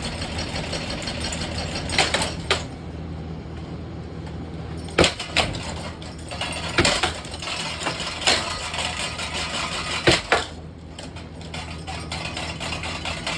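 Harbor Breeze Barnstaple Bay ceiling fan humming steadily as it is being wrecked, with sharp knocks and clatters coming irregularly, about eight times.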